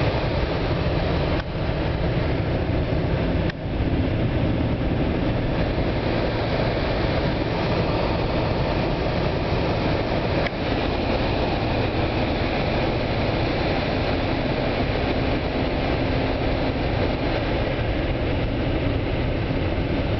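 Steady rushing of the HVAC blower and air from the vents inside a 1999 Mercedes-Benz S-Class, dipping briefly three times. This is the climate-control behaviour that the owner can't explain and finds annoying.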